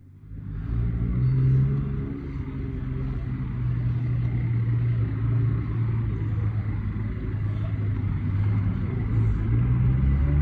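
Motor vehicle running with a steady low rumble; the sound rises in from a brief dropout at the start.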